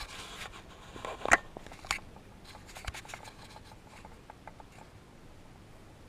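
Handling noise from a hand on the camera: a scatter of clicks and knocks, the loudest a little over a second in, then smaller ticks that thin out towards the end.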